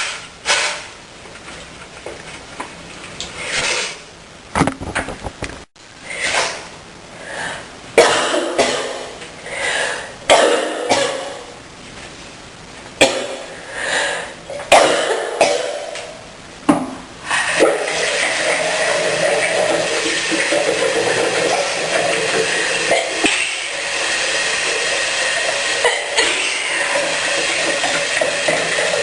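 A woman coughing and sneezing again and again, in short separate bursts, through the first half. Then a steady rushing noise takes over from a little past halfway.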